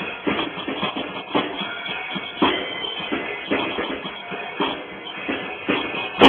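Drum kit played solo: a busy, continuous run of hits with strong accents two or three times a second, ending on a sharp, loud strike.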